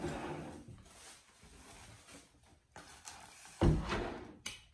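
Foam takeout clamshell container being handled on a table: a rustle at the start, a louder thump about three and a half seconds in as the lid is pushed, and a sharp click just before the end.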